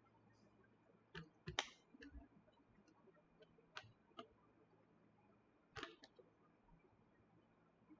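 Near silence: room tone with a handful of faint, short clicks scattered at irregular intervals.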